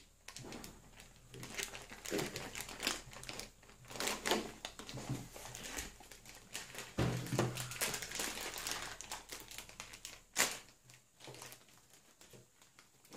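Thin clear plastic toy bag crinkling and crackling in irregular bursts as small hands pull and twist at it to get it open, with one sharper crack about ten seconds in.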